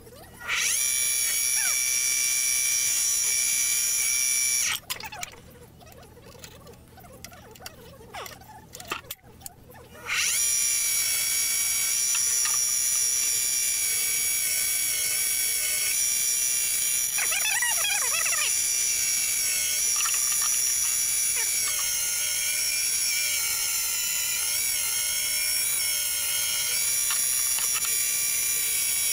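Small benchtop wood lathe running with a steady high-pitched motor whine while a turning tool shapes a spinning cedar handle. About five seconds in the lathe goes quiet for about five seconds, with a few light clicks, then starts up again and runs on.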